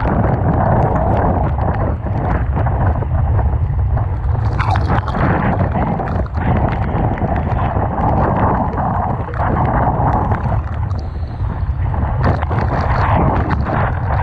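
Typhoon wind buffeting the microphone over rough, surging seawater: a loud, steady rumble and hiss with scattered sharp ticks of spray and water hitting the camera.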